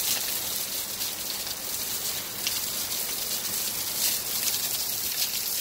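Waterfall spray falling onto a rock face at close range: a steady splatter of droplets on wet stone, much like heavy rain.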